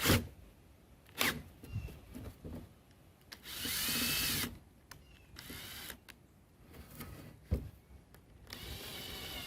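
Power drill run in short bursts, the longest about a second near the middle, its motor whine rising and falling, with sharp clicks and knocks between the runs; it is backing out a stubborn screw that only spins in its hole.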